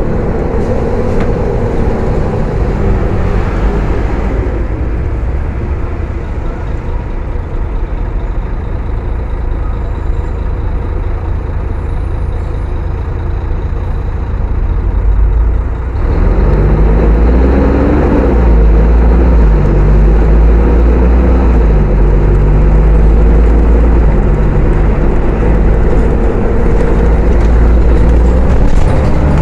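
Mercedes-Benz O500-UA bus's diesel engine with ZF automatic gearbox. Its pitch falls as the bus slows over the first few seconds, then it runs quieter. About halfway through it suddenly gets louder and pulls away, the pitch climbing and dropping several times as the gearbox shifts up.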